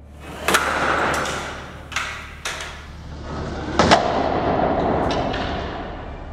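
A homemade wooden guillotine's blade drops and strikes a small ball on the wooden base, giving one heavy thud about four seconds in, followed by a ringing tail. Several lighter knocks come in the first half.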